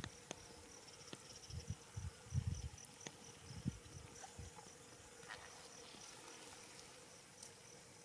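Faint insects chirping in an even high-pitched pulse, about three chirps a second, fading in the second half. A few soft low thumps and faint clicks come through between about one and four seconds in.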